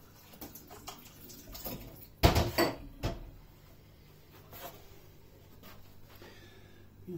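A metal baking tray knocking and clattering as it is handled, loudest in a burst of sharp knocks about two seconds in, with a few lighter clicks and knocks around it.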